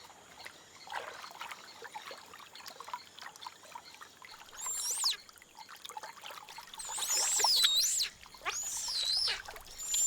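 Giant otter cubs squealing in high, wavering calls, starting about halfway through and coming several times, the last ones loudest. Faint trickling water before the calls begin.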